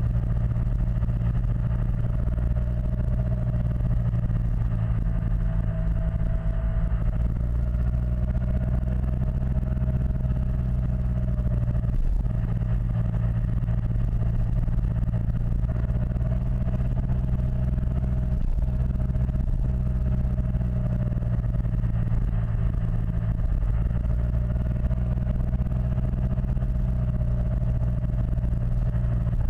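Yamaha T-Max XP500 maxi-scooter's 500 cc parallel-twin engine running at a steady, even pitch.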